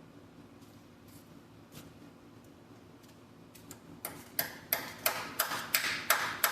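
A run of about eight sharp strikes, roughly three a second, beginning about four seconds in; each has a short rattling tail. Before that there are only a few faint clicks.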